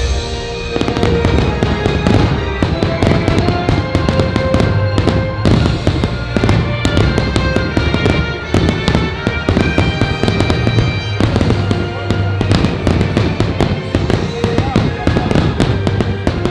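Fireworks bursting in rapid, dense volleys over the show's loud music, the bangs starting about a second in.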